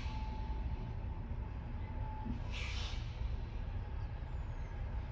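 Caterpillar C15 diesel in a Peterbilt 379 idling with a steady low rumble, heard from inside the cab. A short hiss of air comes about halfway through.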